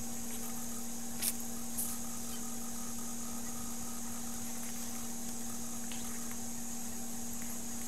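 Steady electrical hum with hiss, and two faint clicks about a second and a half in.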